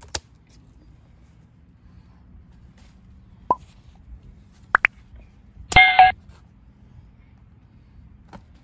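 Subscribe-reminder animation sound effects: a short pop about three and a half seconds in, two quick clicks just before five seconds, then a loud chiming notification ding near six seconds. A single sharp click comes right at the start.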